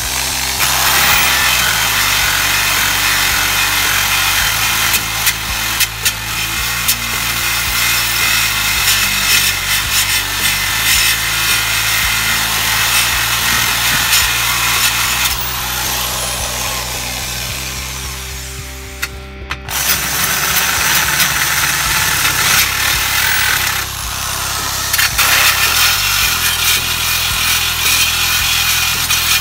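Abrasive disc spun by an electric drill scouring loose paint and rust off a steel brake backplate, a steady rasping grind. It fades and breaks off briefly about two-thirds of the way through, then starts again. Background music runs underneath.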